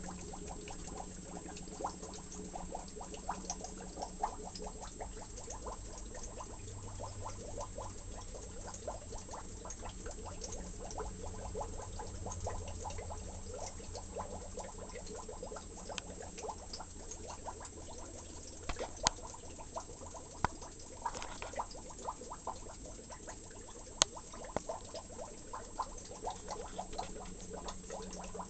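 Fish-tank water trickling and bubbling with dense small crackles over a steady low hum, as of a filter pump. A few sharper clicks stand out near the middle and about two-thirds of the way through.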